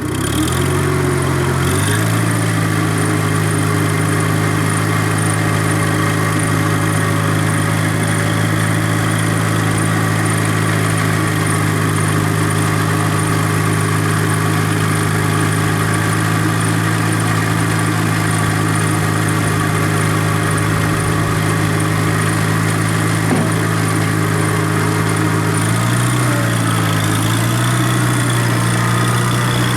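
John Deere 90 skid steer engine running steadily. It picks up speed over the first two seconds, and near the end its pitch dips and recovers a few times.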